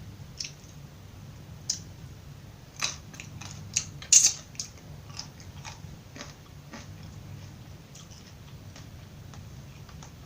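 Close-miked crunching of raw broccoli being bitten and chewed. A cluster of loud, sharp crunches comes about three to four and a half seconds in, the loudest just after four seconds, then fainter chewing crackles.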